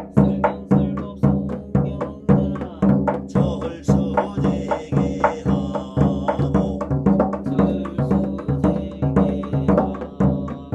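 A Korean barrel drum (yanggo) beaten in a steady practice rhythm (jangdan), about two strong strokes a second with lighter strokes between.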